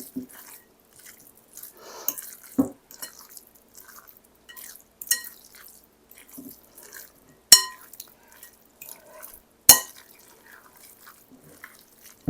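Spoon scraping and clinking against a bowl and can as drained crushed pineapple is added to the mixture, with two sharp taps about halfway through and a little later.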